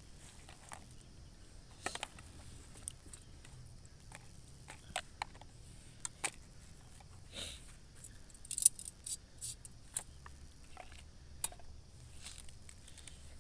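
Scattered light clicks and taps at irregular intervals, like small objects being handled, with the sharpest click a little under nine seconds in.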